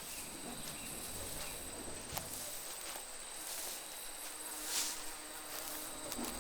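Faint, steady high-pitched insect chirring, with a single click about two seconds in and a short hiss near five seconds.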